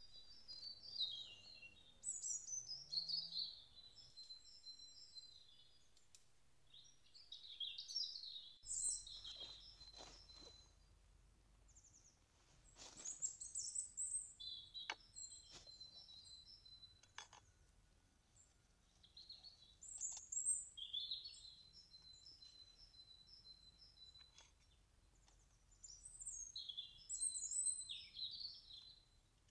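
A songbird singing short, high chirping phrases, repeated about every few seconds, with a few faint sharp clicks in between.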